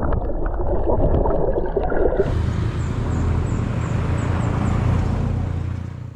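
Outdoor water and wind noise with a low engine drone, most likely a motorboat running on the water. About two seconds in it turns into a steadier low drone, which fades out at the end.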